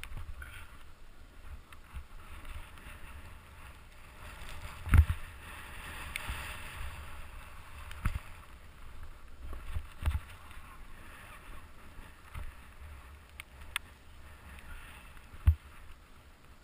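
Snowboard sliding and carving through deep powder, a steady hiss of snow against the board, with wind on the helmet-mounted microphone. A few sharp thumps break through, the loudest about five seconds in and another near the end.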